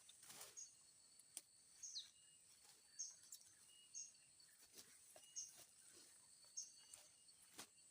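Faint outdoor ambience: a bird giving a short, high chirp about once a second over a steady, thin, high insect drone, with a few soft clicks.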